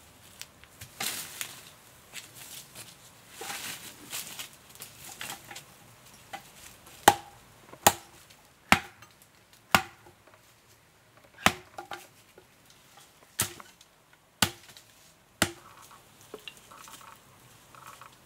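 Hatchet chopping dry branches laid across logs: eight sharp strikes over about eight seconds, each with a short woody ring. Before them, a few seconds of rustling and crackling of branches and leaves.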